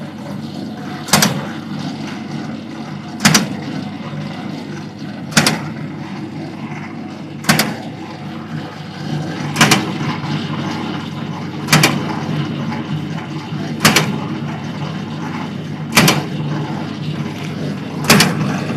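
Automatic fried dough twist machine running with a steady low motor hum. Its automatic cutter chops the twisted dough rope into lengths with a sharp clack about every two seconds, nine times in all.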